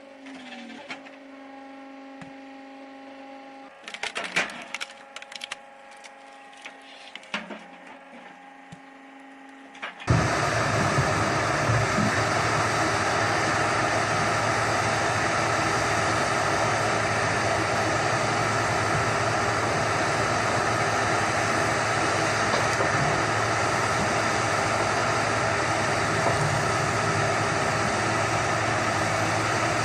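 Wood cracking and splintering a few times over a steady machine hum. About ten seconds in, the sound switches abruptly to a loud engine running steadily.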